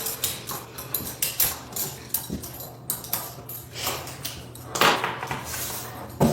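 Metal handcuffs clinking and clicking as they are handled: a run of short, irregular metallic clicks and knocks, loudest about five seconds in.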